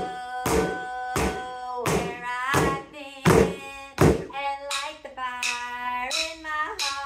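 Drumsticks striking exercise balls seated in plastic buckets in a steady beat, about three hits every two seconds, over sung praise-song melody. The balls give a dull thunk.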